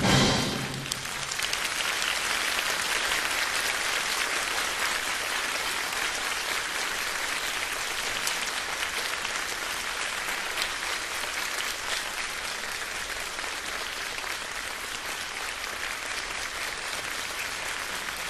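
Ballet music ends on a final chord in the first second, then a theatre audience applauds steadily, easing off slightly toward the end.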